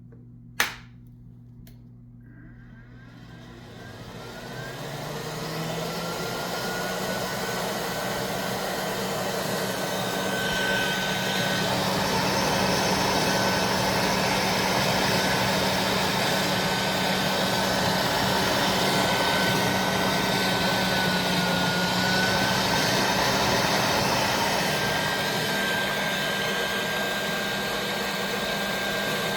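A sharp click, then a battery-powered 3D-printed PAPR blower fan spins up over several seconds, its whine rising in pitch, and settles into a steady whir with a small dip in pitch about two-thirds of the way through.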